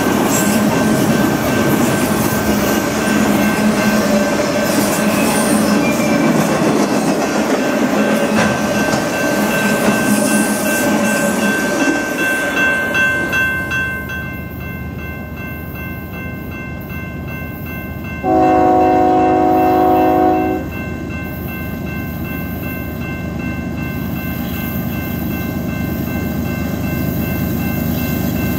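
Freight train autorack cars rolling past with dense wheel-on-rail noise. Then comes the low rumble of an approaching BNSF double-stack intermodal train's diesel locomotives, and about 18 seconds in the lead locomotive sounds one chord blast of its multi-chime air horn, lasting about two seconds.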